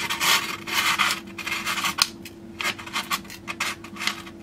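Paper crackling and tearing in a run of short, scratchy strokes as a dull single-bevel holed kitchen knife drags into a sheet instead of slicing it: the edge is blunt and snags and rips the paper.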